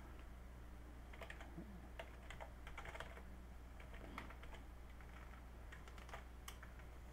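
Faint typing on a computer keyboard: irregular, quick keystroke clicks, over a low steady electrical hum.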